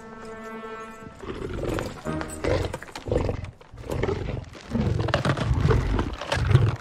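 The Terror Dog, a demonic dog creature, growling and snarling in short heavy bursts, starting about a second in and coming every half second to a second, loudest near the end.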